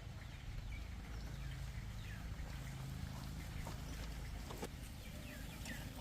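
Faint short falling chirps of birds now and then, with a few light clicks, over a steady low outdoor background rumble.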